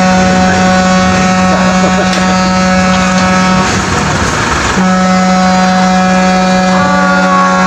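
Roll-on/roll-off ferry's engines running: a loud, steady, many-toned drone, broken by a brief rush of noise about four seconds in.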